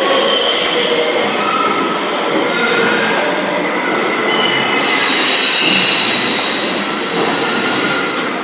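MBTA train running with its wheels squealing on the rails: several shrill tones that come and go and shift in pitch over a steady rolling noise.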